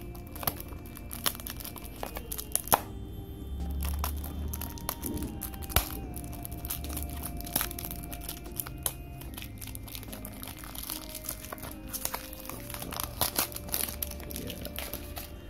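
Thin clear plastic wrapper crinkling and tearing as it is peeled off a small cardboard toy-car box, with many quick crackles. Soft background music with long held notes plays underneath.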